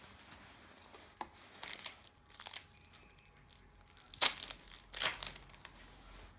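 Trading-card packet wrapper crinkling and tearing as it is handled and opened by hand, in irregular bursts with the loudest crackles about four and five seconds in.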